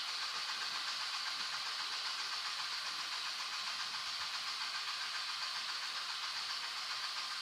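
Audi A3 1.9 TDI diesel turning over on the starter motor, a steady whirring hiss with a fast even pulse that does not catch, as the engine is cranked to bleed air from the fuel system after the injection pump refit.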